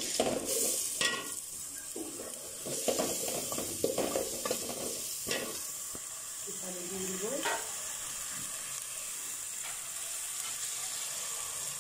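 Shrimp, onion and ground spices frying in oil in a metal pot, a steady sizzle, with a wooden spoon scraping and stirring them through the first several seconds. After that it settles to an even sizzle.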